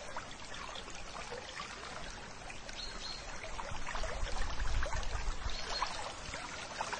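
Water trickling and bubbling, with a low rumble swelling briefly in the middle.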